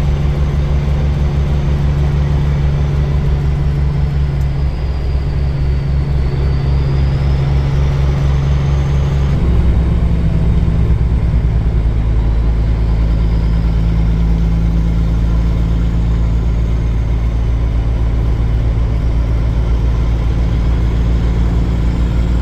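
Semi truck's diesel engine running steadily while driving; its engine note shifts about nine and a half seconds in.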